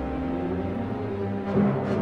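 Dramatic, ominous background music: a sustained low chord, with two drum hits near the end.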